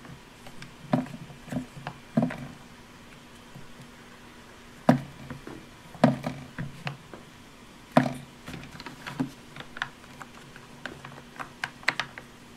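Hands pressing and tapping Play-Doh into a hard plastic toy mould, making irregular knocks and clicks on the plastic. The loudest knocks come about five, six and eight seconds in.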